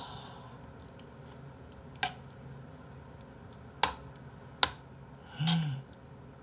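A metal spoon stirring thick rice porridge in a bowl: soft wet squishing, broken by three sharp clicks of the spoon knocking the bowl, about two, four and four and a half seconds in.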